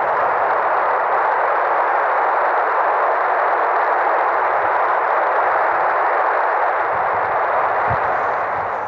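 Handheld FM transceiver (Baofeng UV-B6) hissing steadily from its speaker with the squelch open on the SO-50 satellite downlink, plain receiver noise with no station coming through.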